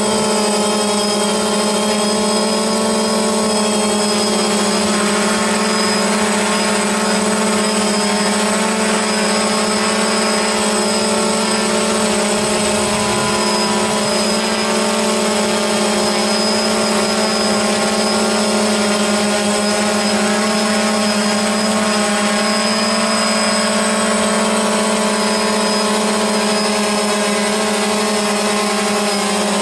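DJI Phantom quadcopter's propellers whining: a steady, even drone hum with a high whistle above it that never changes.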